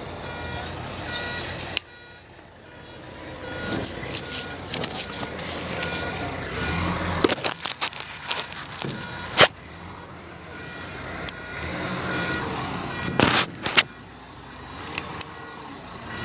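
An excavator working, with a repeating warning beep and a series of sharp clanks and knocks. The loudest knock comes about halfway through, and two more come near the end.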